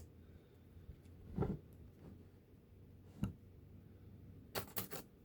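A few light clicks and knocks of small hand tools being handled on a workbench: a soft knock about a second and a half in, a single sharp click a little past halfway, and a quick run of three or four clicks near the end.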